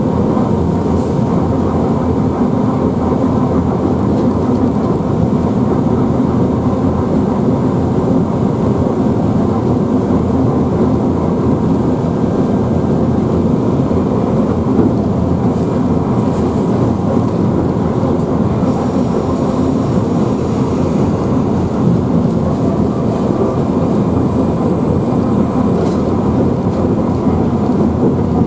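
ČD class 121 electric locomotive running along the track, heard from its cab: a steady rumble of wheels on rail with a constant hum from the locomotive. About two-thirds of the way through a high hiss sounds for a couple of seconds.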